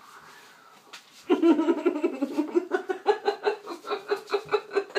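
A woman laughing, a long run of laughter that begins just over a second in and pulses about four times a second.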